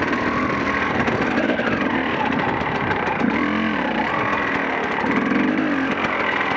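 KTM EXC enduro motorcycle engine running under the rider on a dirt trail, with the throttle blipped so the revs rise and fall twice past the middle.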